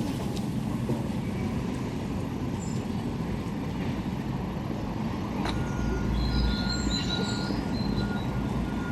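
Wheelchair wheels rolling over a park path, a steady rumble, with a thin high whine joining about halfway through.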